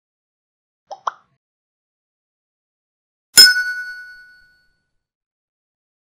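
Editing sound effects for animated on-screen buttons: a quick double click about a second in, then a bright bell-like ding about three and a half seconds in that rings out and fades over about a second.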